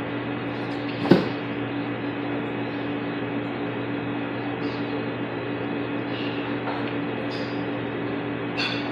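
Steady mechanical hum with an even hiss, holding a low tone throughout, and one sharp knock about a second in.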